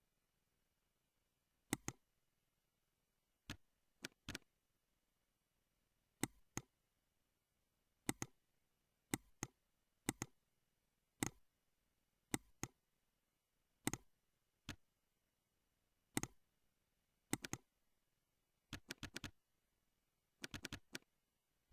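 Computer mouse clicking, single and double clicks every second or two, then two quick runs of keyboard keystrokes near the end.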